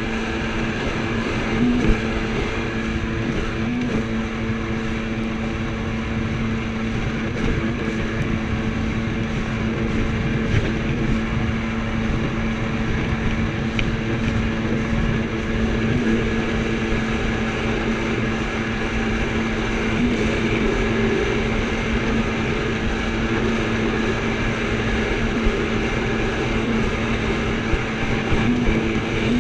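Jet ski engine running steadily at cruising speed, one even engine note over the rushing noise of travel across choppy water.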